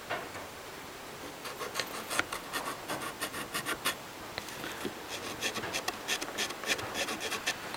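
Pencil marking out lines on wood: runs of quick, short scratching strokes, several a second, from about a second and a half in, pausing briefly around four seconds, then starting again until near the end.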